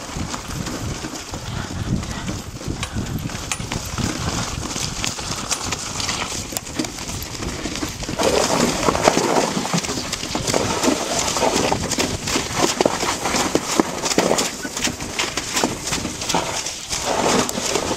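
Hoofbeats of a Curly pony in harness clip-clopping along a rough trail, with the cart and harness clattering and jolting over the bumps. The clatter gets louder about eight seconds in.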